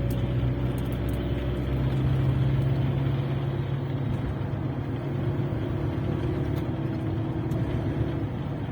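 Great Wall Hover driving in fourth gear at low speed, heard from inside the cabin: a steady engine and drivetrain hum with no strong gearbox noise in this gear.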